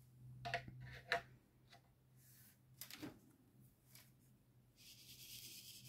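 Faint, scattered light clicks of square resin diamond-painting drills being picked up and pressed onto the canvas with a drill pen, then a soft rustle near the end.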